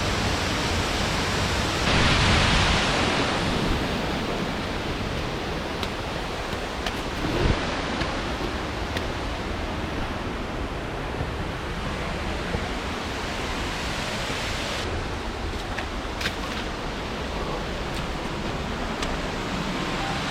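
Steady rush of heavy rain, swelling louder for a second or so about two seconds in, with a few faint clicks.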